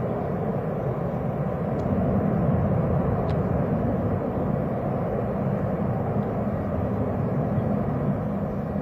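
Steady rumble of jet aircraft engines at an airport, an even noise with no clear pitch.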